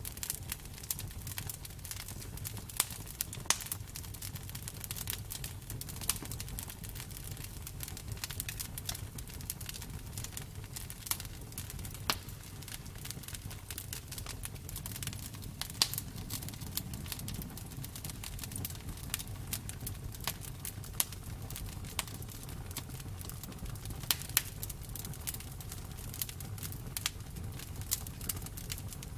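Wood fire burning: many small crackles and sharp pops over a steady low rumble of the flames, with louder pops every second or two.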